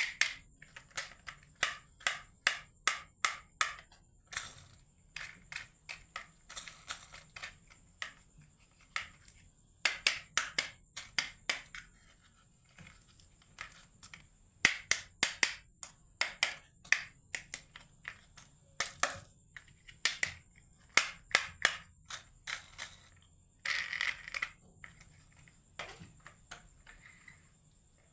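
Marbles clicking and clattering down a wooden HABA marble run: quick irregular runs of sharp clicks, with short pauses between them.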